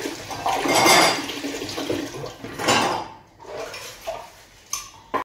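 Dishes and cutlery clattering at a kitchen sink with water running, louder about a second in and again near three seconds, then a couple of sharp clinks near the end.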